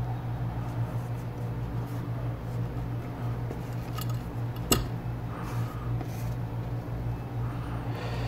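Soft rustling and handling as tulle netting is wrapped snugly around a painted wooden lure held in a small clamp, with light clicks from the clamp and one sharper click a little past halfway. A steady low hum runs underneath.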